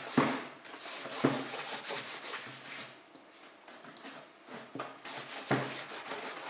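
A cloth rag rubbing and wiping in strokes over a sanded, paper-covered plastic chair to clear off the dust, with a few sharp knocks against the chair.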